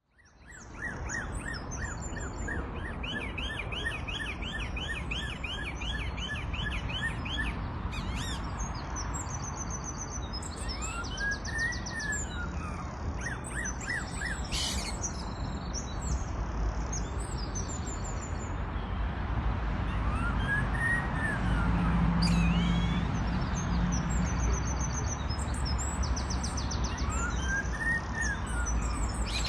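A songbird mimicking a police car siren. A run of quick up-and-down sweeps, nearly three a second, comes a few seconds in, then three slower rising-and-falling wails, mixed with high chirps and twitters. A steady low rumble lies underneath.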